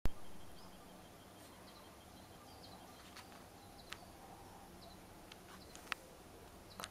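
Faint garden ambience with short high bird chirps scattered through and a fast run of even high ticks in the first half. A sharp click at the very start and a few light clicks later stand out above the low steady background.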